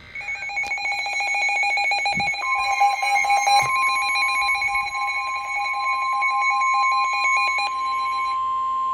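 Emergency alert tones from a weather radio: a fast pulsing electronic alarm sounds for about eight seconds, and about two seconds in a single steady tone near 1 kHz joins it and holds, the NOAA Weather Radio warning alarm tone that comes before a warning is read.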